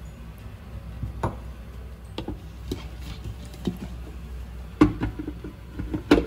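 Scattered clicks and knocks of a stainless steel mixer-grinder jar and its plastic lid being handled: the lid pressed on, then the jar set onto the Preethi mixer base, with the loudest knocks about five and six seconds in.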